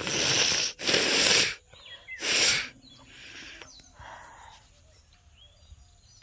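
A person forcefully blowing their nose: three hard, noisy blows about a second apart, followed by two fainter ones.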